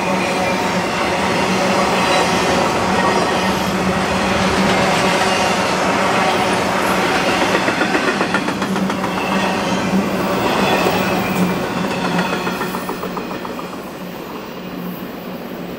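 Intermodal freight train cars, trailers on spine cars and containers in well cars, rolling past close by with a steady rumble of steel wheels on rail and quick clicking over rail joints. The sound falls away near the end as the last cars pass and recede.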